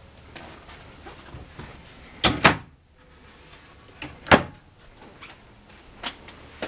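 Wooden cabinet doors in a travel trailer being swung and shut by hand. There is a loud double knock a little over two seconds in and another sharp knock about two seconds later, with lighter clicks of the doors and catches near the end.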